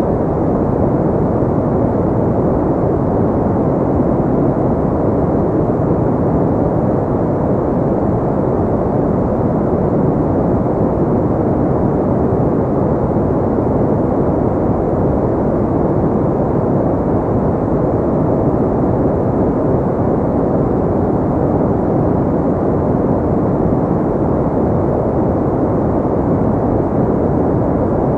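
Steady generated pink noise: an even, unchanging rush with most of its weight in the low and middle range and little treble.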